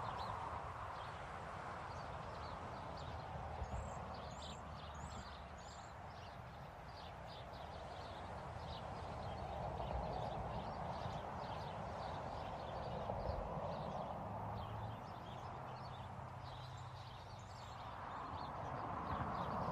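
Faint outdoor ambience: a steady low hum that slowly swells and fades, scattered with many light ticks and a few short high chirps about four seconds in.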